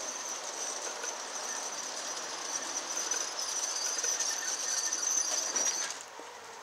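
G-scale model train of many cars rolling along garden track, with a steady high-pitched whine over the running noise that cuts off near the end.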